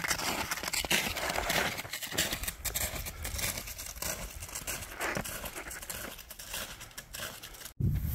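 Snowshoe footsteps crunching in packed snow at a walking pace, an uneven run of crunches with trekking-pole strikes mixed in.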